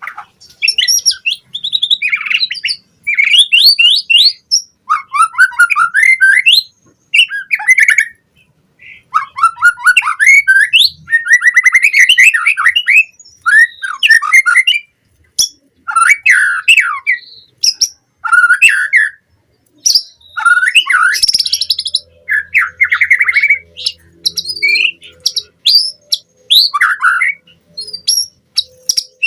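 White-rumped shama (murai batu) singing: a run of varied phrases of rapid whistled and chattering notes, each lasting a second or two, with short pauses between them.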